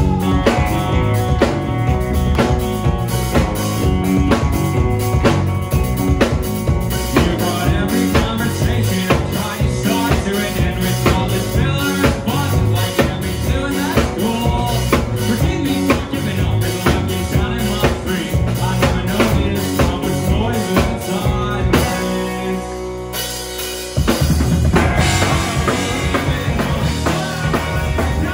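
A live rock band playing loudly on electric guitar, bass guitar and drum kit, with a driving drum beat. About 22 seconds in, the drums drop out for a couple of seconds under a held chord, then the full band crashes back in.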